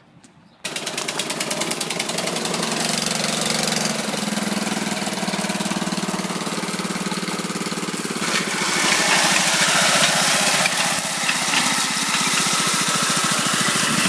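Petrol lawn mower engine running steadily, coming in abruptly after a brief hush; about eight seconds in it gets louder and brighter.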